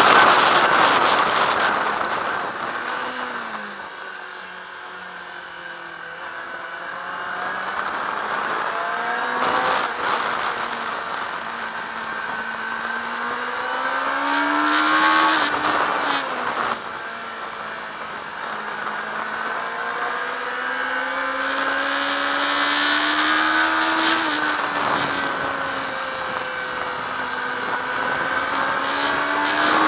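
Yamaha R6 sportbike's inline-four engine heard onboard at a track day: the revs fall steeply over the first few seconds as the throttle closes, then climb slowly, dipping back twice and rising again near the end.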